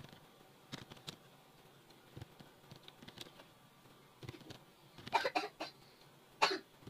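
Computer keyboard and mouse clicks during data entry: scattered single clicks, then a quick run of key presses about five seconds in and one louder keystroke near the end.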